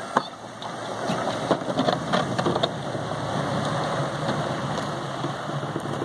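Pickup truck fitted with a front snowplow blade driving past on a snow-covered street: a steady hiss with scattered clicks and crackles.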